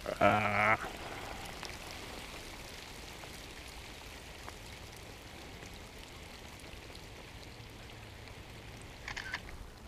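Steady light rain falling on the water of a lake. Near the start comes a short, louder hummed voice sound.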